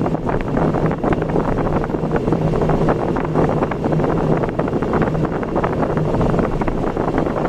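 A vehicle travelling on the road, its steady engine hum under heavy wind buffeting on the microphone.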